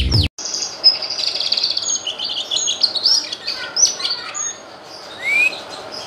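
Cucak kinoy leafbird singing a varied run of high chirps and rapid trills, with a quick rising whistle near the end.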